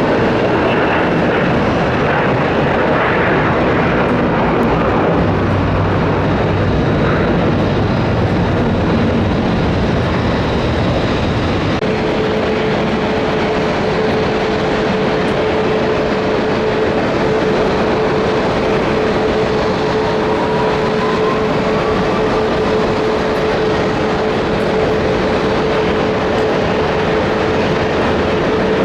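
Jet engine noise throughout. First a Gulfstream G550 business jet's Rolls-Royce BR710 engines running at take-off power. About twelve seconds in it gives way to a Boeing 777-200ER's engines at take-off thrust, with a steady whine over the rumble.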